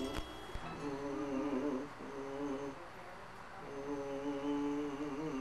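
A person humming a wavering tune in three short phrases, the last one the longest.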